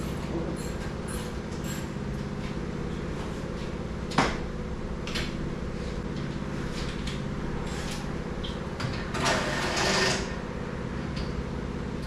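Clanks and clicks of tools and metal parts being handled while a tire changer is assembled, with a sharp clank about four seconds in and a longer scraping noise around nine to ten seconds in, over a steady low hum.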